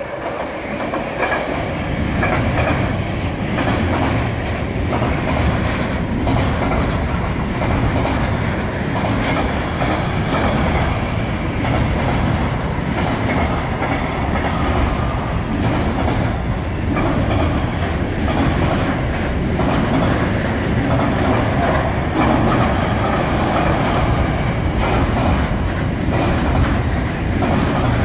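Intermodal container freight train, headed by a Class 186 electric locomotive, passing close by: a loud, steady rumble of wheels on rails with a rhythmic clatter from the container wagons. It grows louder over the first couple of seconds as the locomotive comes past.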